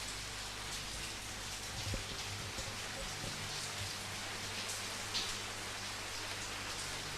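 Steady rain falling, with louder single drops tapping now and then.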